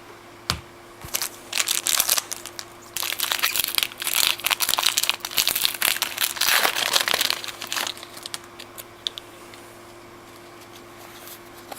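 Foil wrapper of a trading card pack crinkling and crackling as it is torn open and handled for several seconds, dying down to a few light ticks near the end.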